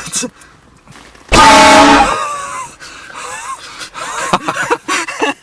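A train horn gives one loud blast of several tones sounding together, lasting under a second, about a second and a half in. It is followed by people's voices reacting.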